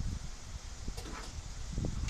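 Handling sounds of hand work on a truck grille: a couple of low bumps and a pair of short, light clicks about a second in.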